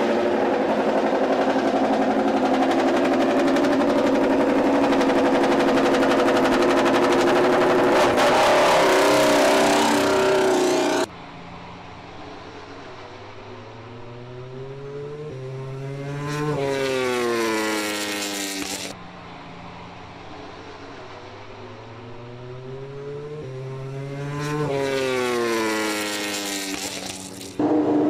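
Honda RC213V MotoGP bike's V4 engine running loud and steady for about eleven seconds, then cut off abruptly. The bike then passes by twice at speed, its engine note climbing as it approaches and dropping as it goes away.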